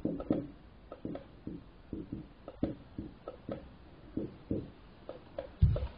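Dry-erase marker writing on a whiteboard: a string of short, faint squeaks and scrapes, about two or three a second, as a line of formula is written out. A dull low thump comes near the end.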